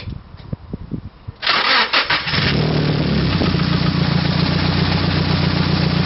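A Nissan 240SX's turbocharged SR20DET four-cylinder engine starting. It catches about a second and a half in with a short rev flare, then settles into a steady idle. It starts now that the cracked battery terminal that was draining the battery has been replaced.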